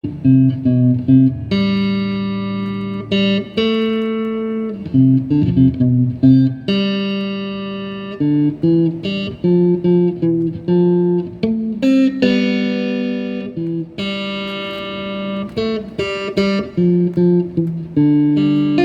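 Instrumental song intro led by guitar: a melody of notes plucked and held, over lower sustained notes.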